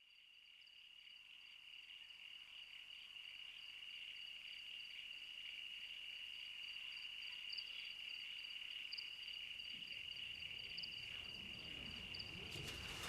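A chorus of crickets chirping steadily, fading in at the start. A low rumble builds in the last few seconds, with a few clicks near the end.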